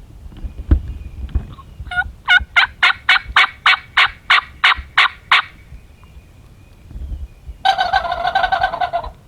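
Wild turkey sounds: a steady run of about eleven yelps, roughly three a second, then after a pause a male turkey's gobble, a rapid rattling call lasting about a second and a half.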